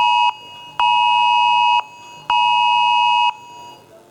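Cell phone sounding the Wireless Emergency Alert attention signal, here for the national WEA test. A loud, steady beep tone cuts off just after the start, then comes back as two one-second tones half a second apart, and fades out near the end.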